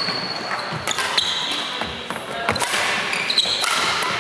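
Badminton rally on a wooden hall floor: several sharp racket strikes on the shuttlecock and long high squeals of court shoes on the boards, over echoing background chatter.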